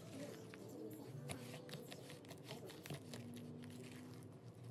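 Faint, scattered clicks and scrapes of a metal utensil mashing potato salad in a plastic bowl.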